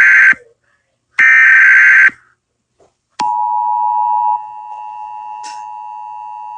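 Emergency Alert System tones. The tail of one harsh, buzzy SAME header data burst is followed by a second full burst of about a second. About three seconds in, the steady two-tone attention signal starts. It drops in loudness after about a second and holds on, the signal that comes before the spoken alert.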